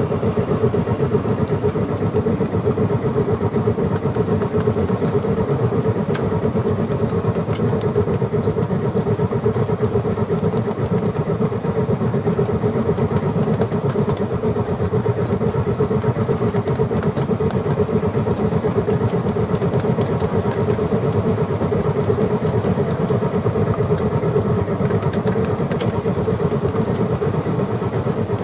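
A battery-powered model steam locomotive running steadily along the track. Its drive gives a constant hum, under the rumble and quick clicking of its wheels on the rails.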